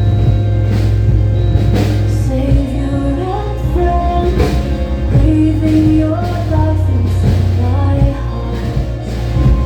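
Song with a steady bass and drums and a melody line that comes in about two seconds in, likely sung.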